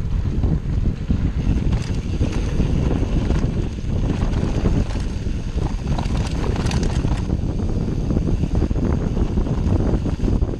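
Wind buffeting the microphone of a camera carried on a mountain bike riding a dirt forest singletrack: a steady low rumble of wind and tyres on the rough trail, with scattered rattles and knocks from the bike over the bumps.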